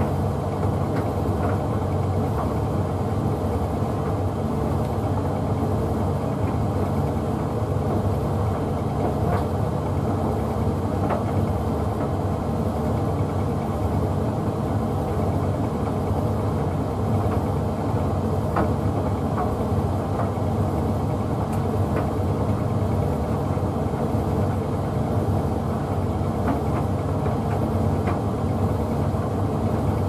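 Hoover Visiontech Infinity VTV581NC tumble dryer running a Rapid 40 drying programme with a bathmat inside: a steady hum from the motor and turning drum, with a few faint ticks.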